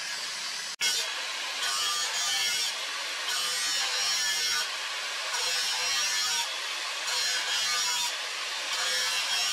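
Angle grinder with an abrasive disc grinding a hardened steel trident blade forged from a wheel bearing race: a harsh hiss that swells and eases in repeated passes about once a second. The sound breaks off for an instant under a second in.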